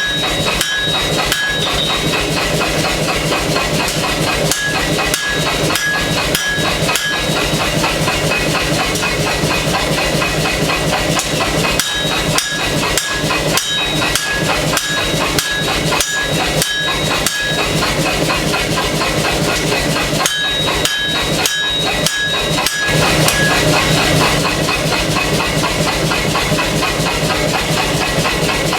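Air hammer pounding hot steel in a long, rapid run of blows, with a brief high ring coming and going now and then.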